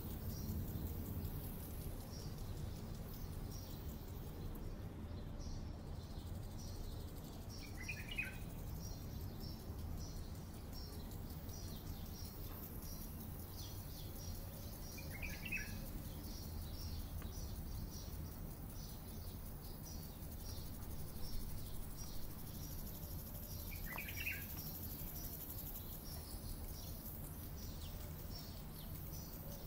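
Park ambience: a bird gives a short chirp three times, several seconds apart, over a steady low hum, an even high ticking of about two a second and a soft hiss that swells in the second half.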